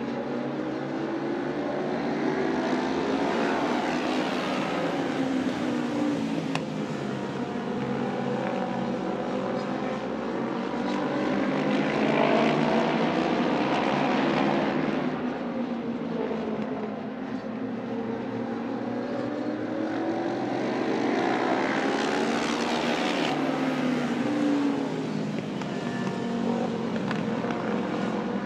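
Racing motorcycle engines at high revs as a pack of bikes laps an oval track. The engine pitch rises and falls, and the sound swells and fades three times as the bikes come past.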